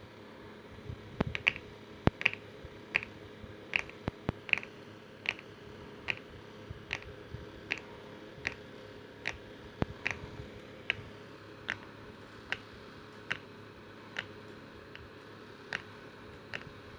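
Knuckles cracking: a long run of sharp cracks at a steady pace of about one every 0.8 seconds, with a few louder, irregular cracks in the first few seconds.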